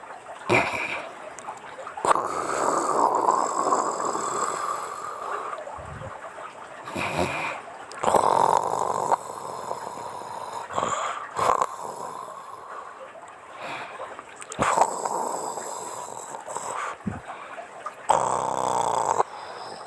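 A woman snoring in her sleep: rasping snores on breaths that come every few seconds, with short snorts in between.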